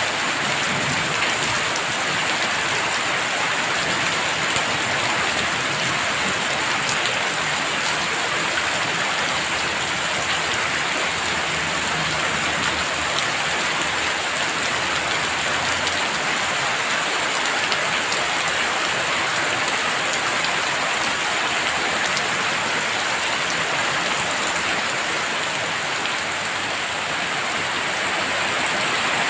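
Heavy rain falling steadily: a dense, even hiss of countless drops that holds at the same level throughout.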